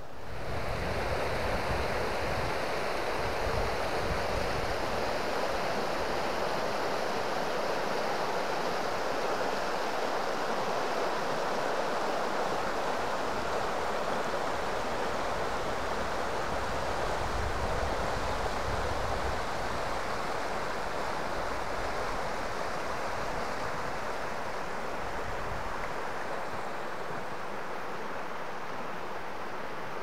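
River water rushing over a shallow, stony stretch: a steady, even rush, with low wind rumble on the microphone now and then.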